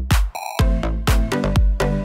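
Background electronic dance music with a steady kick drum about twice a second; the beat drops out briefly near the start, then comes straight back.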